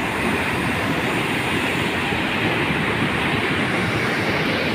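A river in flood: a torrent of muddy water rushing steadily under a bridge, a constant rush of water without let-up.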